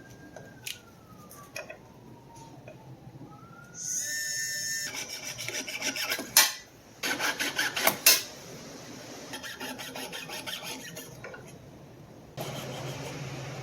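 Metal jewelry piece being hand-filed to clean it up: bursts of rapid rasping strokes, strongest in the middle, settling into a steadier rasp.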